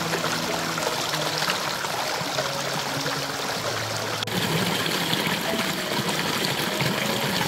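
Running water, a steady loud rush with a slight break about four seconds in. Soft background music plays faintly underneath.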